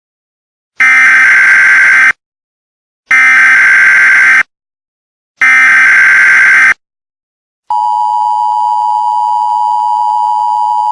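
Emergency Alert System SAME header: three loud bursts of warbling data tones, each about a second and a half long and about a second apart. About eight seconds in, the steady two-tone EAS attention signal starts and holds.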